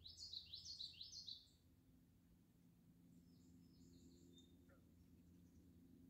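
A bird sings a quick string of high chirps, about six notes in a second and a half, then gives a few fainter chirps a couple of seconds later.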